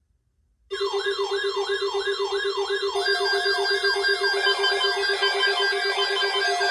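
Several electronic alarm/siren tones sounding at once, starting suddenly after a short silence: a rapidly pulsing low tone under a falling sweep that repeats about three times a second and a high warble. Further steady alarm tones join about three and four and a half seconds in, thickening the din.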